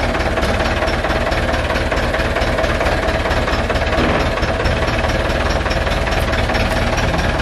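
Massey Ferguson tractor's diesel engine running steadily with a rapid, even clatter and a steady tone alongside.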